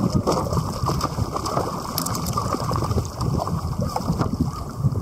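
Wind buffeting the microphone over sea water sloshing against a kayak, with irregular splashes from a hooked yellowtail thrashing at the surface beside it.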